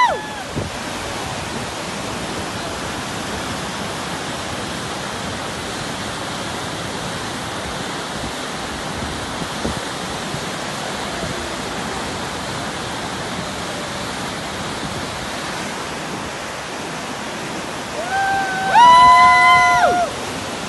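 Whitewater rapids rushing steadily. About two seconds before the end, loud high-pitched calls ring out for about two seconds, in several held tones that step upward.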